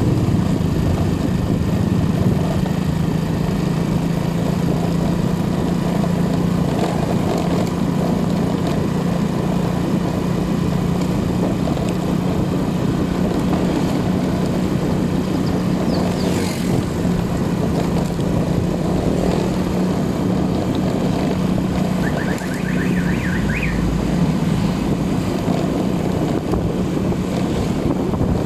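A motor vehicle engine running steadily, with a constant low hum, over road and wind noise. About three-quarters of the way through there is a short, high, rapid chirping trill.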